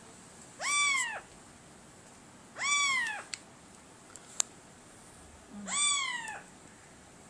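Three meow calls about two and a half seconds apart, each rising quickly and then falling slowly in pitch, with a sharp click between the second and third.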